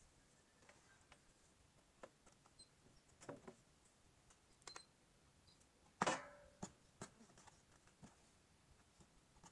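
Near silence broken by a few faint clicks and knocks, among them a fan's plug being pushed into a plastic power strip. The loudest is a single sharp knock about six seconds in.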